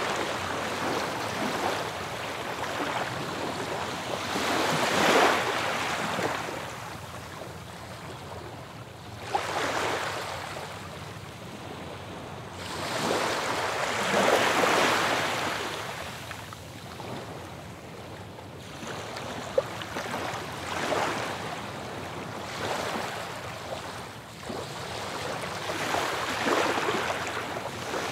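Ocean surf: waves breaking and washing back in slow swells, about one every five seconds.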